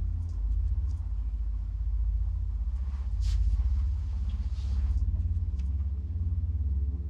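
A low, steady rumbling drone with a fast throb and a few held low tones above it, the ambient sound-design bed under a tense pause. A few faint clicks and soft hissy sounds sit on top of it.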